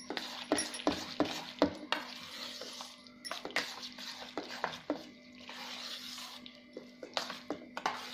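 A spoon stirring thick semolina-and-curd batter with chopped vegetables in a stainless steel bowl: irregular scraping and clinks of the spoon against the bowl, a few times a second.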